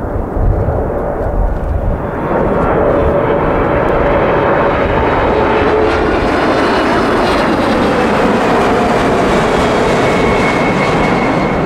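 Boeing 747-400's four Pratt & Whitney PW4056 turbofans at approach power as the airliner passes low overhead with gear down on landing approach. A loud jet roar swells about two seconds in and then holds steady, with whining tones that slowly drop in pitch as it goes by.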